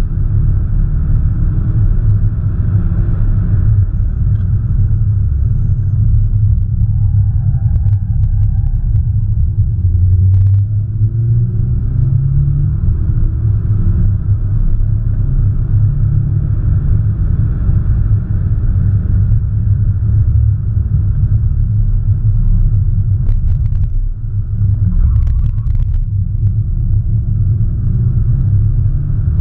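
Audi S1 Sportback's turbocharged 2.0-litre four-cylinder engine running under way with a heavy, steady rumble, its pitch rising and falling as the car accelerates and changes gear.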